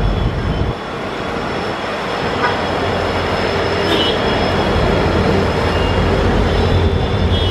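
Train running on the rails: a steady rumble of wheels with a thin, high squeal held throughout. The rumble dips just under a second in and then slowly grows louder.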